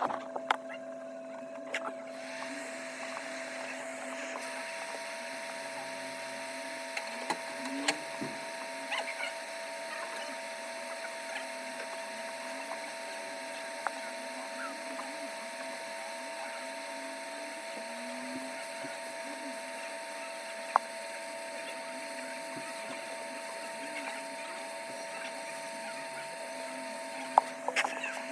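Hot air rework station blowing steadily on the phone's logic board, switched on about two seconds in and off near the end, over a constant electrical hum, with occasional small clicks and taps of tools on the board.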